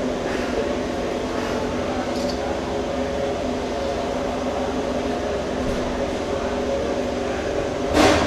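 Steady mechanical hum with several held tones, in a race team's pit garage. About eight seconds in, a much louder engine sound starts suddenly, typical of a race motorcycle revving nearby.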